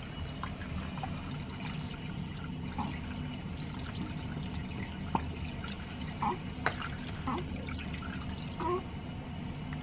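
Tap water running in a thin steady stream into a sink, with small splashes and drips as a baby is washed under it, over a steady low hum.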